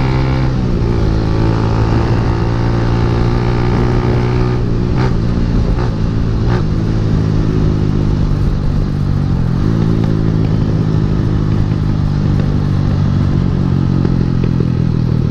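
Suzuki Intruder 125's single-cylinder four-stroke engine running under way. Its note dips and climbs back twice, about half a second in and about ten seconds in. A few brief clicks come between five and six and a half seconds in.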